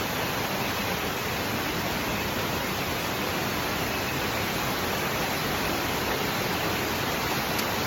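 Steady roar of a waterfall, an even rushing hiss at a constant level.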